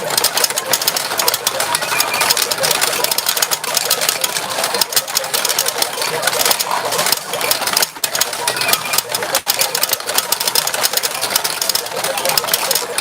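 Retro pachinko machine in play: steel balls clattering rapidly and continuously through the machine, a dense steady rattle.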